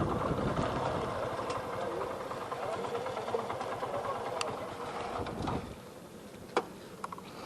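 Yamaha FZ motorcycle's single-cylinder engine idling, then falling away about five and a half seconds in as it is switched off. A sharp click follows about a second later.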